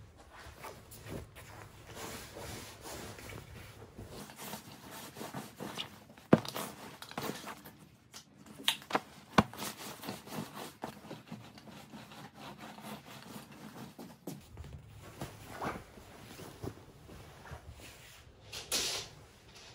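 Indoor handling noises: rustling and rubbing with scattered light clicks, two sharp knocks about six and nine seconds in, and a short louder rustle near the end.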